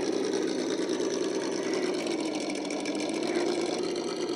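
Radio-controlled scale crawler (RC4WD Trail Finder 2 type) running steadily as it crawls over rocks: the whir of its electric motor and gears mixed with the simulated engine of its onboard sound kit.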